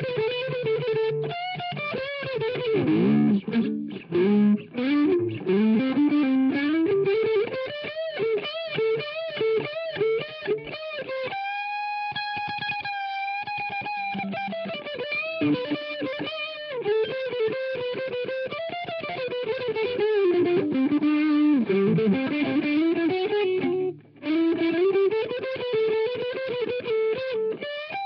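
Doubleneck electric guitar playing a fast lead solo, full of string bends and vibrato, with one long held high note about halfway through.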